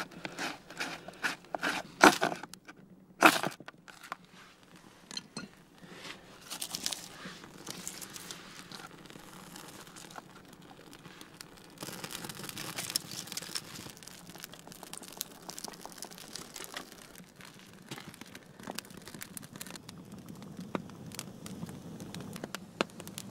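A knife blade scraping birch bark into tinder in a run of quick strokes, followed by a small fire of birch bark and split kindling crackling as it catches.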